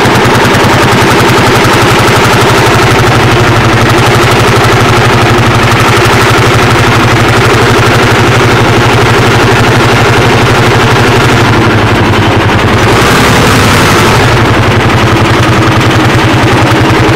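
Lanz Bulldog 55 hp tractor's single-cylinder two-stroke hot-bulb engine running loud, with a rapid staccato exhaust beat, heard from the driver's seat while climbing a steep grade. The beat is briefly broken about twelve seconds in, then picks up again.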